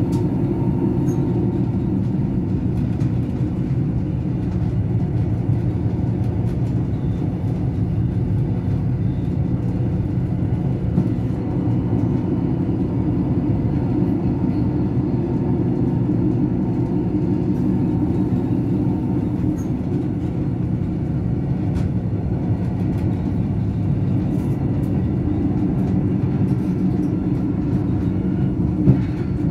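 Steady running noise of a BLS RBDe 566 electric railcar heard from inside its driver's cab: wheels on rails and the drive's rumble, with a few faint steady tones. A brief click comes about a third of the way in, and a sharper one comes just before the end.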